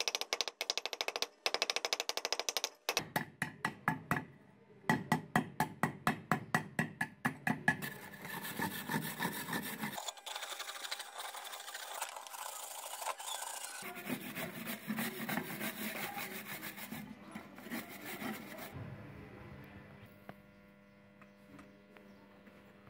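A hammer tapping rapidly along a rusty steel chain on a wooden block, about four blows a second. This is followed by a rasping back-and-forth scrubbing as the rusty chain is brushed by hand.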